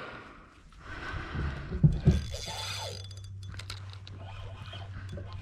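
A few knocks of gear on a fishing kayak about two seconds in, then a steady low mechanical hum with a faint whir.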